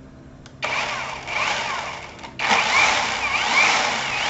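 Cordless battery chainsaw (Pinkway) running under the trigger: it starts about half a second in, cuts out for a moment just past two seconds, then runs again, its whine rising and falling as the motor speeds up and slows.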